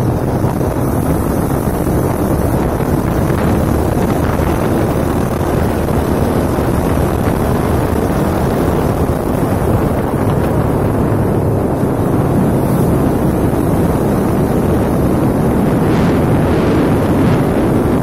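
Steady, loud wind rush on the microphone of a moving motorcycle, with the motorcycle's engine and road noise running underneath.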